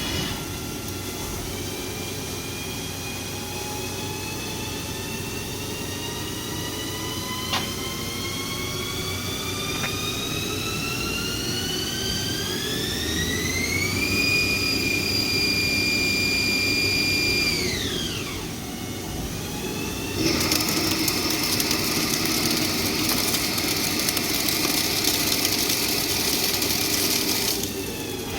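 Haas ST-30 CNC lathe spindle drive whining as it ramps up in speed, the pitch climbing slowly for about fourteen seconds, holding steady, then dropping quickly as the spindle brakes. About twenty seconds in, a loud, harsh hiss starts and runs for several seconds.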